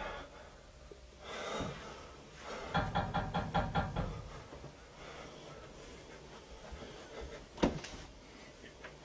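Quiet film soundtrack: a soft rushing swell, then a short pulsing musical phrase, and a single sharp knock near the end.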